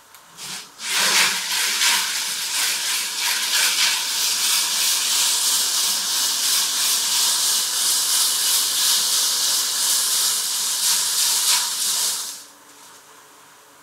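Octagonal steel tumbling barrel switched on about a second in, bolts churning inside it in a dense, steady, hiss-like rattle. It cuts off suddenly near the end as the barrel is switched off.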